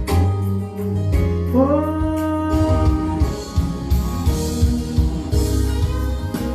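Music with a sung vocal line over bass and a steady beat.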